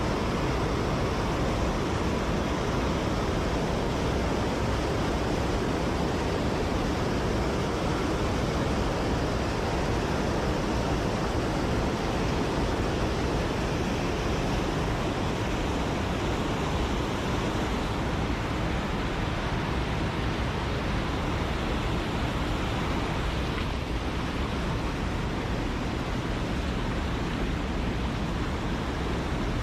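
Mountain stream water rushing over rocks, a steady even rush with no change in level.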